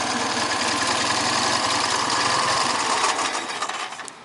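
Sidecar motorcycle engine running steadily, then dying away over the last second as it is shut off.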